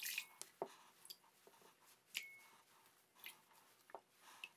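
Faint scattered clinks and taps of glass dishes as wet ingredients, starting with water from a glass measuring cup, go into a glass mixing bowl. One clink about two seconds in rings briefly.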